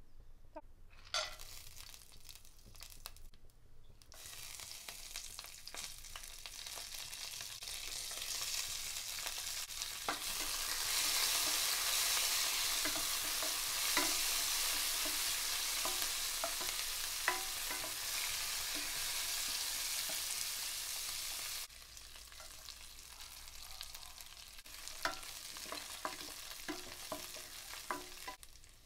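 Peanuts, green chillies and curry leaves sizzling in hot oil in a nonstick kadai, while a spatula stirs and taps against the pan. The sizzle builds over the first several seconds and is loudest in the middle. About two-thirds of the way through it drops suddenly to a quieter sizzle with a series of spatula taps.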